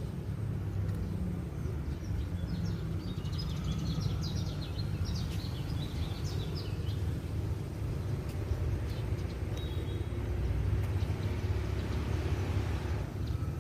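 A bird chirping in a quick run of short, high calls for a few seconds, over a steady low rumble.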